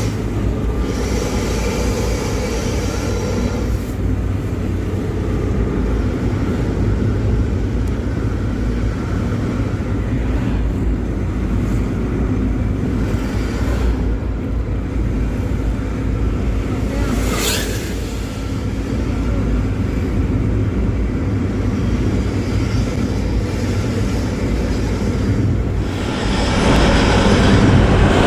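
Front-engined intercity bus running on the road with its deep, growling 'snoring' exhaust (knalpot ngorok), a steady engine rumble throughout. A brief hiss passes about two-thirds of the way in, and the rumble grows louder near the end.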